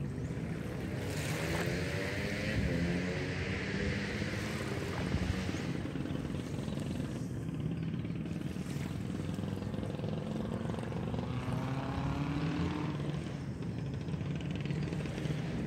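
A small engine running steadily, its pitch rising and falling twice.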